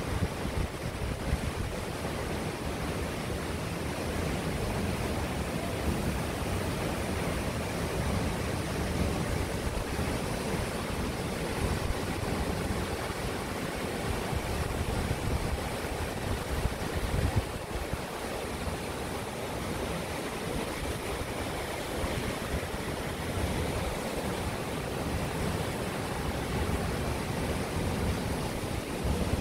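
Waterfall plunging down a rock face into a shallow pool, a steady, even rush of falling water.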